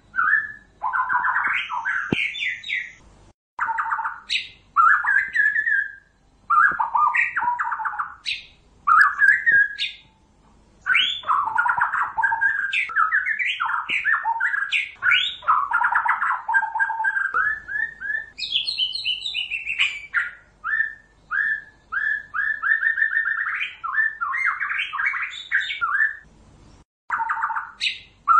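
White-rumped shama singing: a long run of varied phrases of clear whistles, rapid trills and quick chattering notes, with short pauses between phrases.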